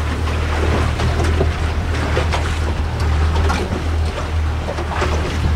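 A motorboat under way: the boat's motor gives a steady low drone, with wind buffeting the microphone and water rushing along the hull.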